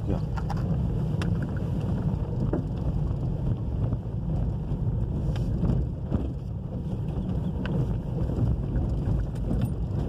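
A steady low rumble of a vehicle rolling slowly along a gravel road, with wind buffeting the microphone and a few faint clicks from the gravel.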